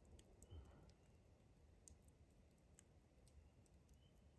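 Near silence with a wood campfire faintly crackling: sparse sharp clicks and pops at uneven intervals.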